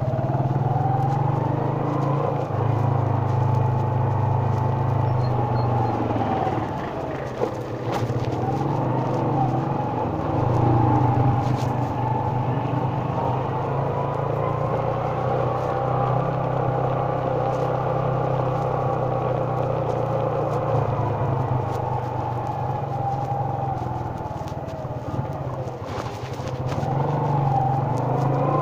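Motorcycle engine running while riding, its pitch rising and falling as the rider speeds up and slows, easing off about seven seconds in and again shortly before the end.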